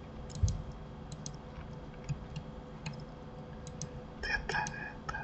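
Sparse, quiet clicks of a computer keyboard and mouse: about ten single clicks spread irregularly.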